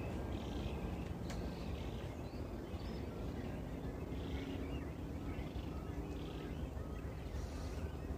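Outdoor ambience in a nature reserve: faint chirps of small birds over a steady low rumble, with soft scuffing noises about once a second.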